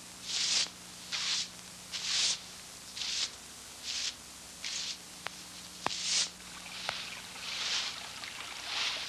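Street brooms sweeping stone paving: short swishing strokes, just over one a second, with a few sharp clicks around the middle; the strokes blur together near the end.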